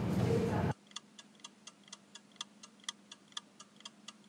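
Clock-ticking sound effect for a quiz countdown timer, about four even ticks a second. It starts under a second in, after faint room tone, and counts down the answering time.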